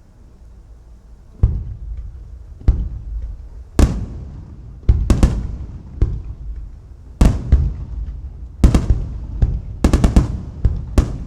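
Aerial firework shells bursting: sharp booms that start about a second and a half in and come more and more often, with several in quick succession near the end, each trailing off in a rumbling echo.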